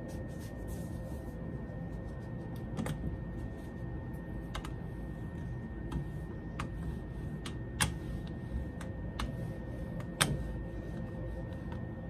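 Rolling pin worked by hand over a crocheted doily pressed into a soft clay slab, giving scattered light clicks and knocks, two of them sharper late on, over a steady low hum with a faint high whine.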